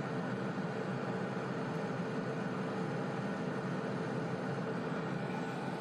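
Steady machine hum with a few held tones from the WaveLight laser equipment, the excimer laser warming up.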